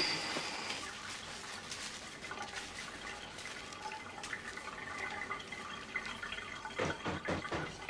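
Bathwater sloshing and the wet squish of thick shampoo lather as hands work it through a boy's hair, with a few louder splashes near the end.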